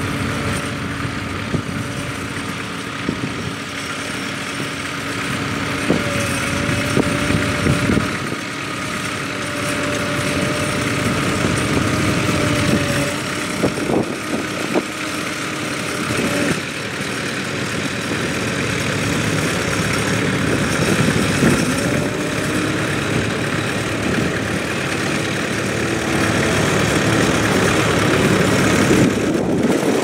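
Vintage International McCormick tractor engine running steadily while pulling a plough. The engine note shifts in pitch about halfway through.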